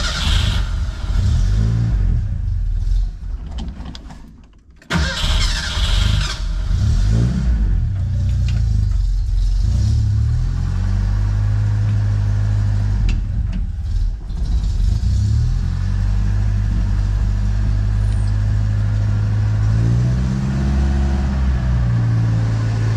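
Ford Mustang II engine being started after a transmission swap: it runs briefly, fades and dies about four seconds in, is cranked again and catches about a second later, revs, then settles into a steady idle with a few short revs.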